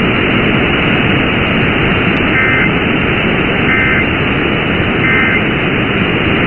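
Loud, steady radio static hiss from a weakly received emergency-alert broadcast. Three short, faint two-tone data bursts sound in it about 1.3 s apart: the SAME end-of-message code that follows a warning's spoken text.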